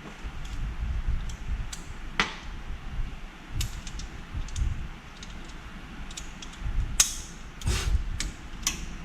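Scattered light clicks and knocks of tools and suspension parts being handled during front-end work on an SUV, over a low rumble. Two sharper knocks come about seven and eight seconds in.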